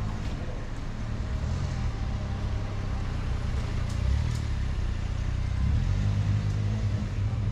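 Cars moving slowly close by, their engines running with a low steady hum that grows a little louder in the second half.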